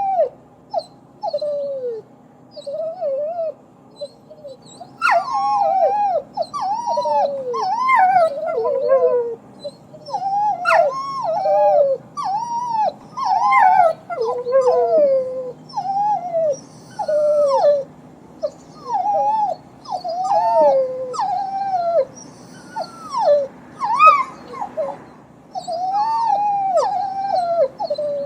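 A dog crying: high whining and whimpering cries, each sliding down in pitch, a few scattered ones at first and then long runs of cries broken by short pauses from about five seconds in.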